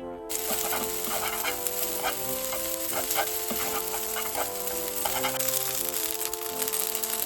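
Food stir-frying in oil in a hot frying pan, a loud sizzle that starts abruptly just after the start and carries on with brief crackling flecks as it is stirred.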